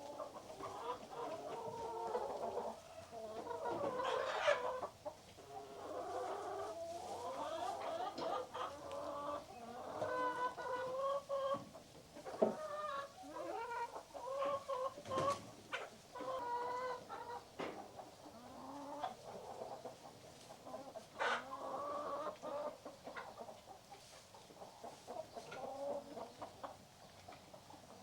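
Several hens clucking and cackling, with calls overlapping and short notes repeated in runs. A few sharp clicks or knocks cut in, loudest about fifteen seconds in.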